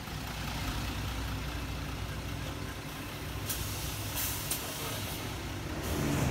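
City bus engine idling at a stop with a steady low hum, with three short hisses of air from its air brakes about three and a half to four and a half seconds in.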